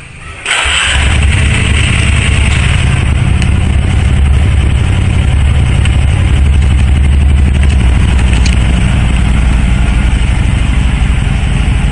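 Small motorcycle engine starting suddenly about half a second in, switched on by a remote-control unit wired into the ignition, then idling steadily and loudly.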